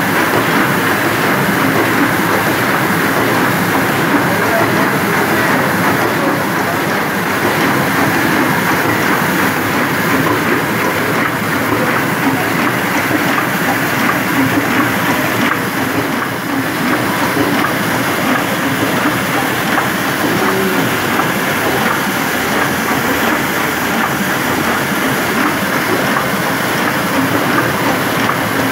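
Heidelberg 28×40 sheet-fed offset printing press running at speed, a steady, dense mechanical clatter of rollers and sheet grippers feeding and delivering sheets.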